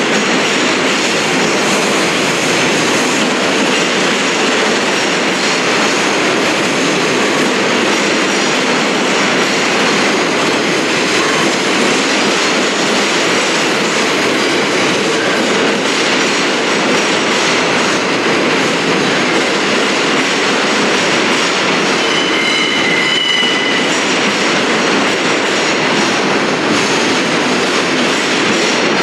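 New York City subway train running past through an underground station, a loud, steady noise of wheels on rail. A brief high-pitched squeal comes about three-quarters of the way through.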